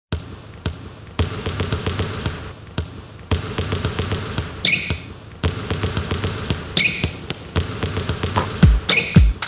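A basketball dribbled on a hardwood gym floor in a steady, quick rhythm, with a short sneaker squeak about every two seconds. Heavier, louder bounces come near the end.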